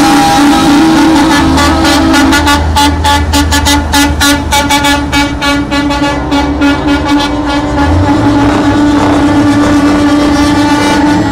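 Semi-truck air horns held in long steady blasts over the rumble of diesel tractor units driving past.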